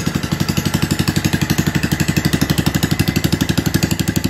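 Kohler K301 single-cylinder engine running steadily at a low speed, with a quick, even beat of exhaust pulses.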